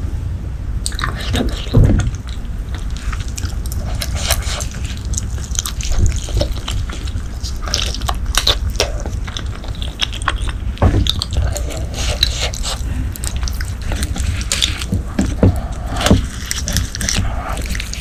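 Close-miked wet chewing of braised pork leg: a dense, irregular run of sticky mouth clicks and squelches, with a few stronger bites and smacks.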